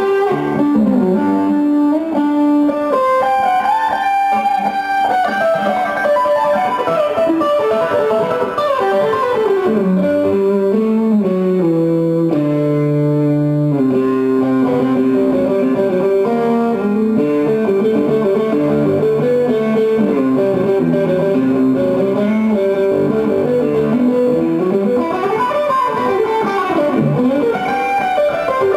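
Guitar instrumental: a plucked melody of quickly changing notes over bass notes, played continuously.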